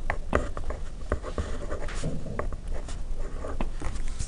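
A marker writing on paper: irregular short scratches and light taps as the pen strokes out letters and symbols.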